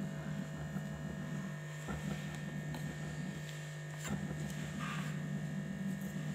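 A steady low electrical hum, with faint soft rustles and a few light clicks as fingers work milk powder and egg together into a crumbly dough in a china plate.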